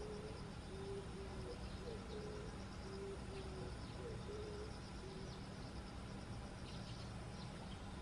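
Outdoor wildlife ambience: a run of short, low hooting calls about two a second, stopping about five seconds in, over a steady high insect trill and a faint low rumble.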